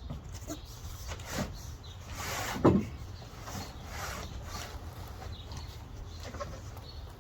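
Scraping and knocking as a heavy boxed walk-behind mower is shifted and manhandled out by one person, with one louder knock about two and a half seconds in.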